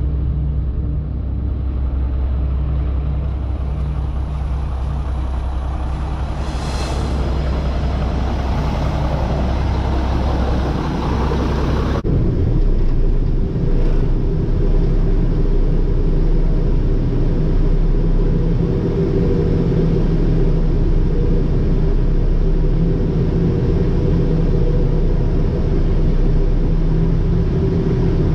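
Heavy diesel engines of farm equipment and a truck running steadily. About twelve seconds in, the sound switches abruptly to a different steady engine hum.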